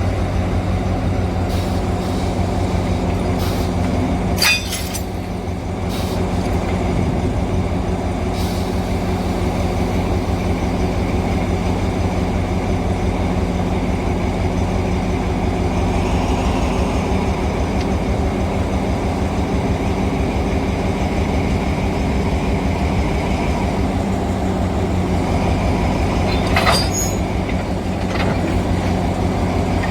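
Diesel-electric locomotive 4418 running steadily with a low engine drone while shunting. Two short, sharp sounds break through, one about four seconds in and one near the end.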